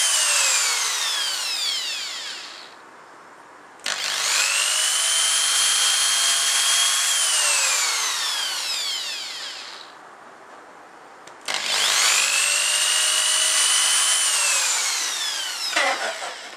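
Electric drill boring the screw holes for a Telecaster-style bridge into the guitar's wooden body. A high whine winds down with falling pitch near the start, then twice more the drill starts suddenly, runs steady for about three seconds and winds down slowly with falling pitch.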